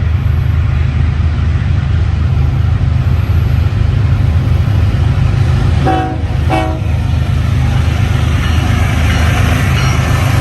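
Diesel locomotives of two freight trains running side by side, with a steady low engine rumble; about six seconds in, a locomotive air horn sounds two short blasts.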